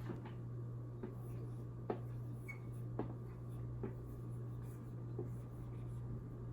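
Writing: light scattered taps and strokes about once a second over a steady low hum.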